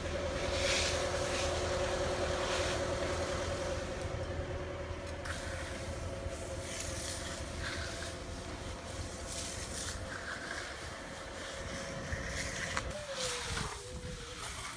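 An engine running at a steady speed with a constant hum, its pitch falling sharply about thirteen seconds in as it slows.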